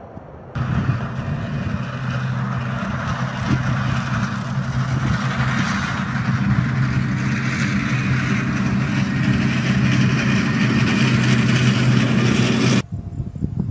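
A tracked M270 multiple rocket launcher driving, its diesel engine running with a steady drone under the noise of its tracks. The sound starts abruptly about half a second in and cuts off suddenly near the end.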